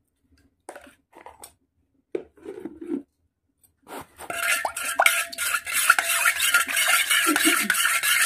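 A metal spoon stirs watery liquid briskly in a stainless steel bowl, scraping and clinking against the sides while the bowl rings. A few faint knocks come first, and the fast stirring starts about four seconds in.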